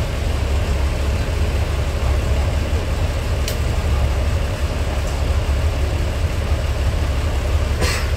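DR2303 diesel railcar's engine running with a steady low rumble, heard from inside the passenger cabin. A short click about three and a half seconds in and a louder one near the end.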